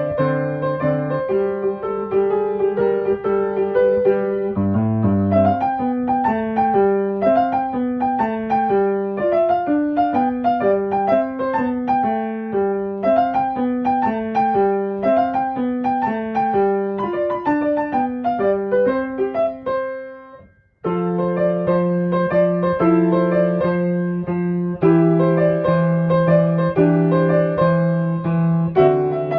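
Background piano music: flowing runs of notes, fading out and stopping briefly about twenty seconds in, then starting again.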